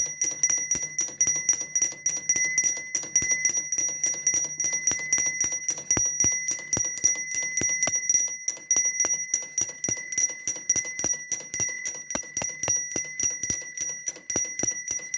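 Alarm bell of a Black Forest balance-wheel alarm clock ringing continuously, its hammer striking rapidly, about five times a second, with a brief break about eight seconds in.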